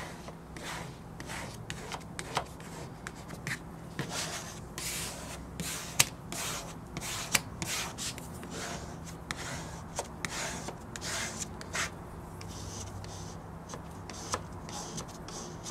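Hand squeegee and fingers rubbing and scraping over a vinyl decal's transfer tape on car window glass, pressing out the soapy water left behind the decal. It comes as a string of short strokes, with a few sharp ticks among them.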